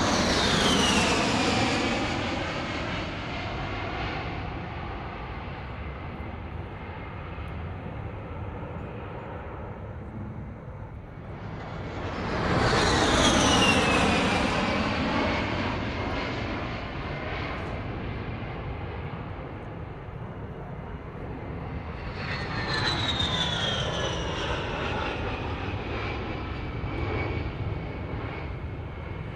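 Jet aircraft turbine engines passing by three times in a row. Each pass swells in loudness with a high whine that falls steadily in pitch as the jet goes by, then settles into a steady rumble. The third pass is softer than the first two.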